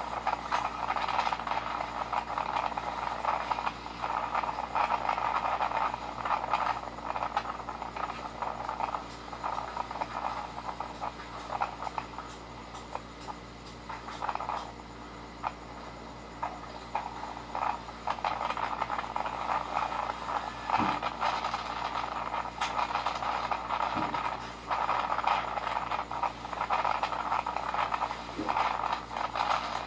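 Super Typhoon Yutu's winds blowing in rising and falling gusts, with rattling and a couple of knocks about two-thirds of the way through. The sound is thin, as if played through a phone's speaker, over a steady low hum.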